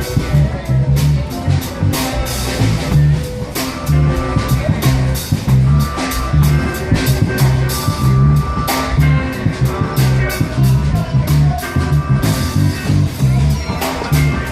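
Live band playing at a sound check: guitar over a drum kit and held bass notes, with dense drum and cymbal hits.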